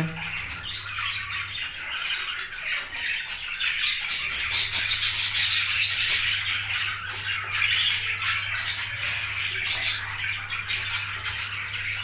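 A flock of budgerigars chattering, with many short chirps and squawks overlapping without a break.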